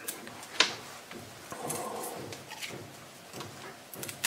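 Fresh rosemary being stripped off its woody stems by hand: soft, uneven rustling and rubbing, with a sharp click about half a second in and another near the end.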